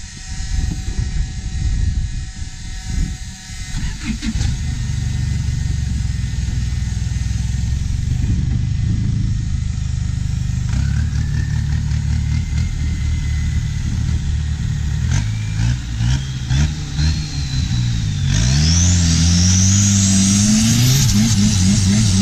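Diesel engine of a narrow wooden long-tail boat running under way, its revs climbing in steps through the second half. A few seconds before the end it gets louder, with a high whine rising alongside, as the boat picks up speed.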